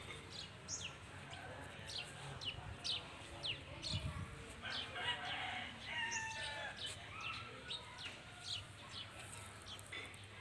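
Birds chirping in many short, quick notes throughout, with a few longer drawn-out calls about five to seven seconds in.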